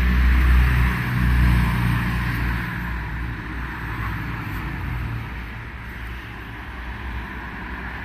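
A motor vehicle's engine running steadily and slowly fading away, over a steady background hiss.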